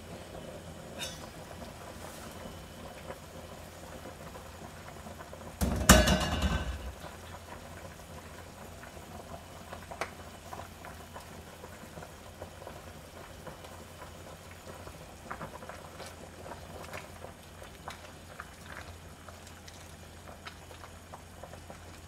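Soup bubbling steadily in a stainless steel pot, with a loud metal clatter about six seconds in as the lid comes off. Small clinks of the seasoning bottle and ladle against the pot follow.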